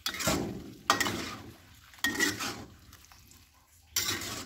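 Spatula scraping and turning a moist stir-fry of bitter melon and tempeh in a non-stick wok, four strokes about a second apart.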